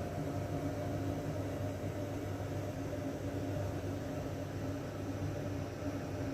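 Steady mechanical hum with an even hiss over it, like a fan or running appliance, holding level without change.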